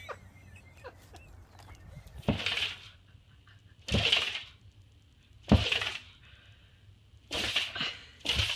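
A pet sneezing five times in a row, each sneeze a sudden sharp burst with a short hiss, a second or two apart.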